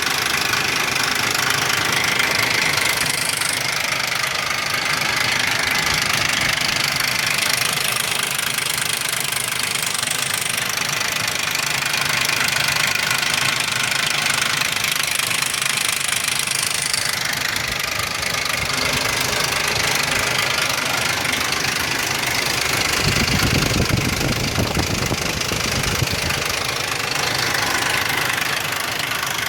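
Ford 4.0 SOHC V6 running with a loud, fast rattle, deeper for a few seconds a little over twenty seconds in. The engine has low compression on all three right-bank cylinders, and the owner suspects the right-hand (rear) timing chain or its cam sprocket as the cause of the rattle.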